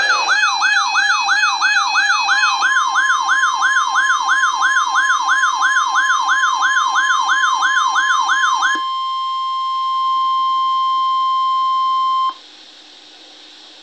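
An electronic siren-like wail sweeping up and down about two and a half times a second, layered with other steady and sweeping tones. About nine seconds in it gives way to the steady 1050 Hz Weather Radio warning alarm tone, which cuts off suddenly some three seconds later, leaving a faint hiss of radio static.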